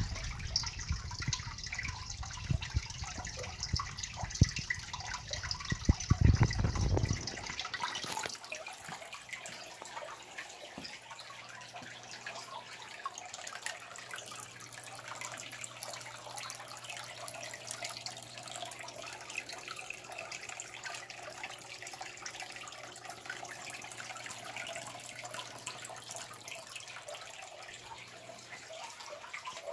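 Aquarium water trickling and splashing, with a loud low rumble for the first seven seconds and a faint steady low hum later on.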